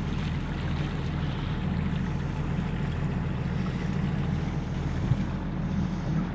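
A fishing boat's inboard engine running steadily at a constant pitch, under a steady hiss of water and wind.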